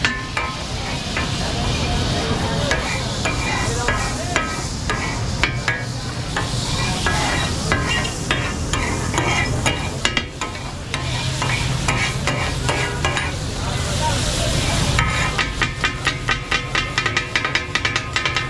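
Katakat cooking: two steel spatulas chop and scrape goat brain and kidney on a large flat iron griddle, clattering metal on metal over the sizzle of frying. Near the end the strikes turn into a fast, even chopping rhythm.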